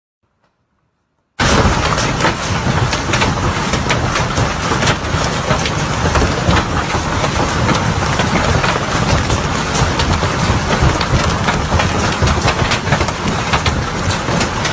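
Silence for about a second and a half, then hail pelting down: a dense, loud rush studded with many sharp ticks of hailstones striking, over a heavy low rumble.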